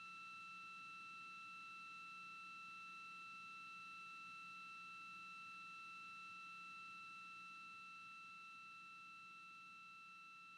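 Near silence with a faint, steady high-pitched electronic tone and its overtones over low hiss, easing slightly in level near the end.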